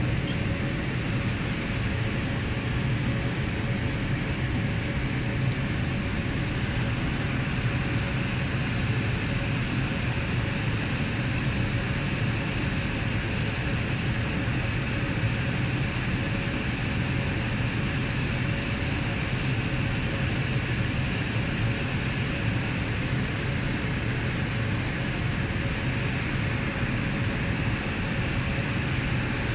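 Steady whir of equipment-room cooling fans and air conditioning, a constant low hum with a faint steady tone, with a few faint clicks now and then.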